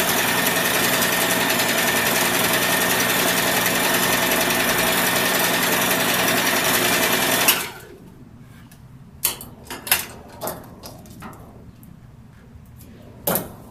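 Domestic electric sewing machine running steadily as it stitches fabric, stopping abruptly about seven and a half seconds in. A few light clicks and taps follow, the loudest near the end.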